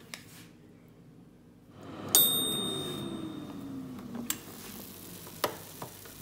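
Air fryer's timer bell dinging once as the cooking ends, while its fan winds down with a falling whir, followed by a few sharp clicks as the lid is unlatched and lifted.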